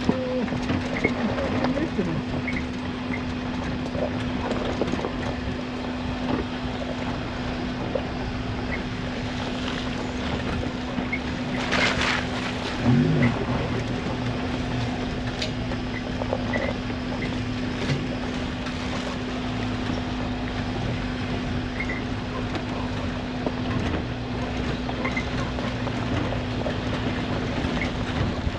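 Suzuki Jimny's engine running at a steady pitch, heard inside the cabin, with rumble and knocks from the rough track; one sharp knock about twelve seconds in.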